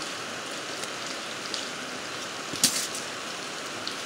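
Steel transformer laminations clicking as they are worked loose and pulled from the core by hand, with one sharper clatter about two and a half seconds in, over a steady hiss.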